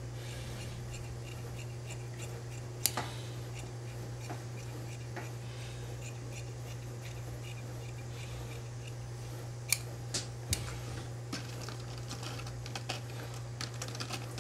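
Large tailor's shears cutting suit fabric: scattered sharp snips and blade clicks, the loudest about three seconds in and a few more around ten seconds in, over a steady low hum.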